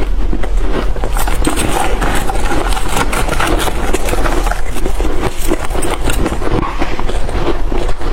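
Close-miked chewing of freezer frost or shaved ice: dense, continuous crunching and crackling.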